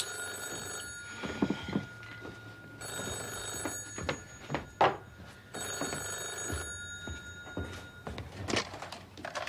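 Telephone ringing, three rings in a row, with a few soft thumps between them.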